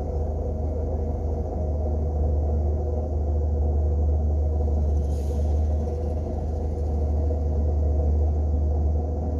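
Steady low rumble of a motor vehicle with a constant low hum.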